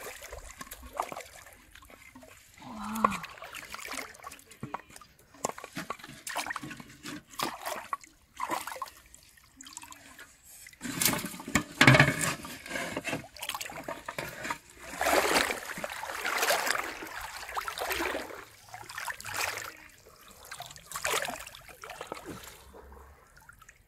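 River water splashing and sloshing as a hooked fish thrashes at the surface and is handled in knee-deep water, with a cluster of louder knocks and splashes about halfway through, near a metal pot.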